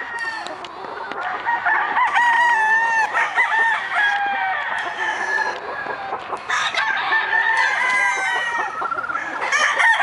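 Many roosters crowing across the yard, their crows overlapping one after another with hardly a pause.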